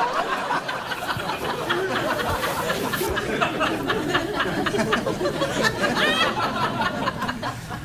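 Studio audience applauding and cheering, with a dense clatter of handclaps and a rising whoop about six seconds in.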